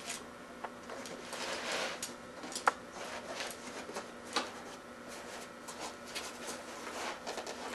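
Padding sleeve being worked by hand around a bicycle crankset and chainring: rustling and scraping of the pad with scattered clicks of the metal parts, one sharp click about two and a half seconds in.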